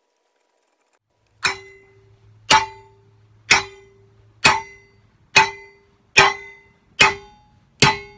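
Hammer blows on a metal piece being bent into shape: eight sharp, ringing strikes about one a second, starting after a second and a half of silence and coming a little faster towards the end.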